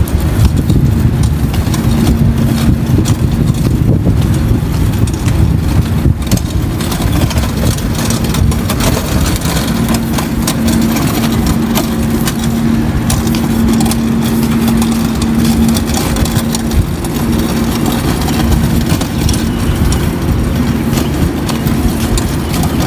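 Loaded hand trolley's hard wheels rolling over asphalt: a steady, loud low rumble with a constant hum and small rattles.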